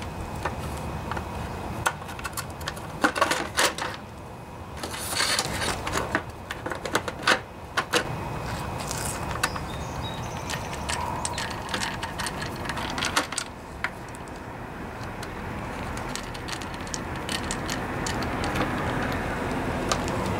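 Scattered clicks, taps and plastic clatter of a lawnmower's plastic engine cover being fitted over its Briggs & Stratton engine and screwed down with a screwdriver.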